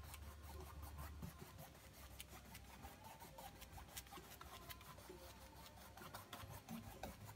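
Faint scratchy rubbing of a paintbrush's bristles stroking acrylic paint across a stretched canvas, with light ticks as the brush moves.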